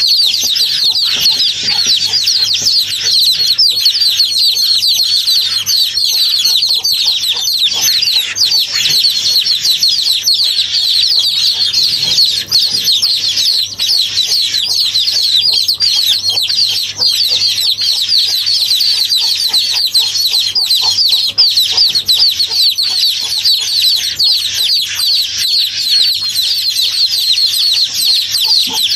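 A dense, continuous chorus of high peeping from many birds, with a faint steady low hum underneath.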